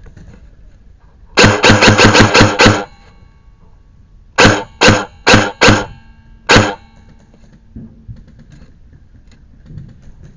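Airsoft rifle firing right at the microphone: a rapid burst of about eight shots, then five single shots fired a little apart.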